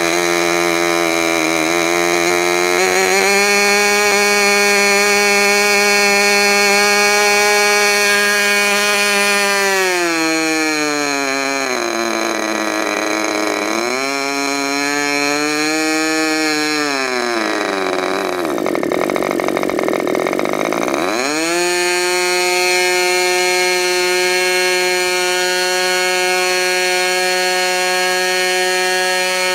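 Modified K&B .61 two-stroke glow-fuel model airplane engine on its test run after an overhaul, running at high speed on a test stand. Its speed sags and picks up again a couple of times about a third of the way in, drops to about half just past the middle, then climbs back and runs steady at full speed.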